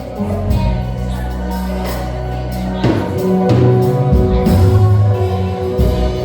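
Live gospel band music: held keyboard chords over a moving bass line, with a few drum hits and some singing.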